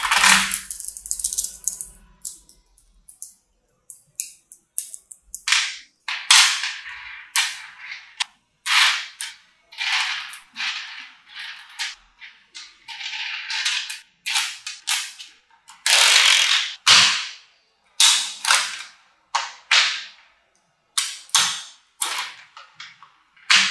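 Mini magnetic balls clicking and rattling as they are pulled off a clump and snapped together into rows, in many short, irregular bursts of sharp clicks.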